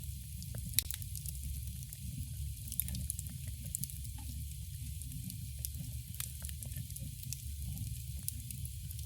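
Campfire burning: a steady low rumble and hiss of the flames with frequent small crackles and pops, two of them sharper, about a second in and near three seconds.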